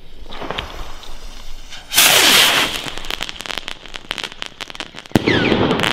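Funke Silber Cracker crackling-tail rocket: a loud rushing hiss about two seconds in, then a fast string of crackling pops. A sharp bang comes near the end, followed by more hissing crackle.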